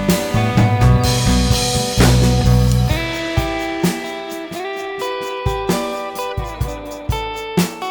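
Background music: guitar with drums, the low end dropping away about three seconds in and leaving plucked guitar notes over light, regular beats.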